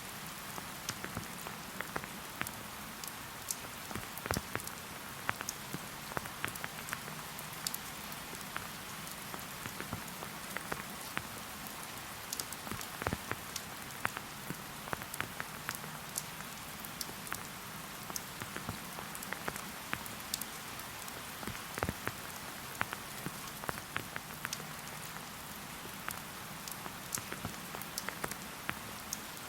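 Steady rain falling, an even hiss with many separate drop hits close by, irregular and some louder than the rest.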